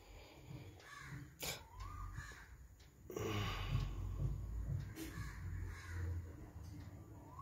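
A bird cawing a few times in the background, over a low rumble that swells in the middle, with a couple of sharp knocks.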